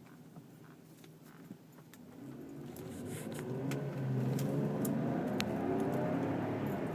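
A car engine speeding up, growing louder from about two seconds in and running strongly through the rest. Short light clicks are scattered throughout.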